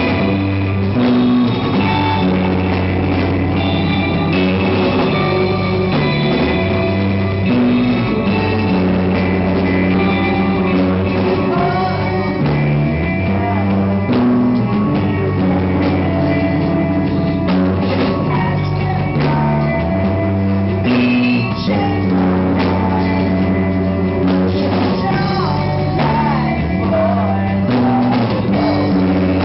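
A rock band playing live: electric guitars, bass and a drum kit, with a voice singing.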